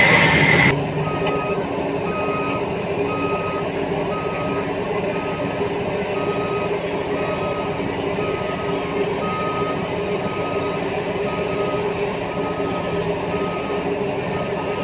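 Reversing alarm on heavy mining equipment beeping steadily, about one and a half beeps a second, over the steady drone of a diesel engine. A louder, rushing noise cuts off abruptly within the first second.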